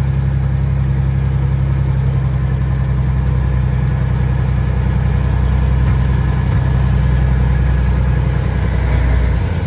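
Caterpillar 3406E inline-six diesel of a Freightliner FLD120 semi truck running steadily as the truck rolls slowly, heard from inside the cab. Near the end the engine note drops and gets quieter.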